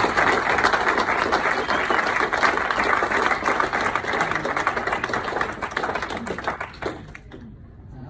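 Audience applauding, a dense patter of many hands clapping that dies away about seven seconds in.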